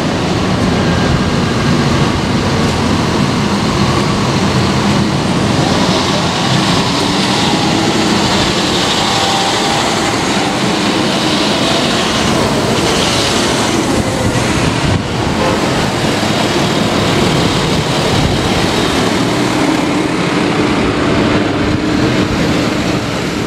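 Passing road traffic: a car goes by, then a farm tractor's diesel engine and tyres pass close, loudest about halfway through, followed by a pickup truck.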